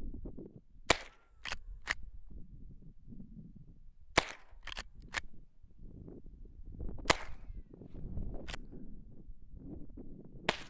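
Rifle fired in single shots a few seconds apart. Each loud, sharp crack is followed by fainter cracks, and some by a short falling whine: bullets ricocheting.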